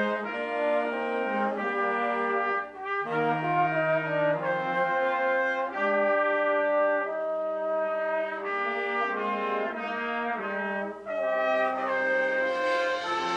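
Concert band playing slow, held chords, with the brass to the fore and short breaks between phrases. Near the end a cymbal swells in over the band.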